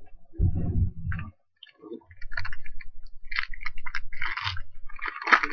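Foil trading-card pack wrapper being torn open and crinkled by hand: a dense crackling crinkle from about two seconds in, after a low handling bump in the first second.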